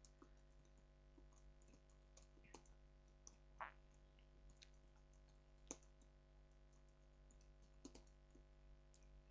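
Faint, irregular clicks of computer keyboard keys being typed, over a low steady electrical hum.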